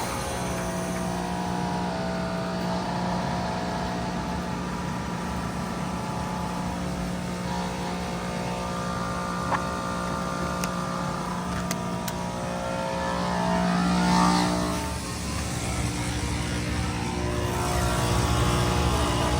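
A 4-ton Bard wall-hung heat pump running with a steady, humming mechanical sound. The hum swells and shifts in tone about fourteen seconds in, then settles into a lower, heavier hum near the end.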